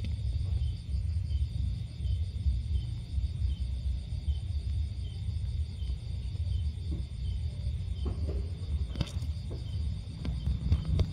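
Insects chirping in an even, repeating pulse over a steady low rumble, with a couple of brief soft clicks near the end.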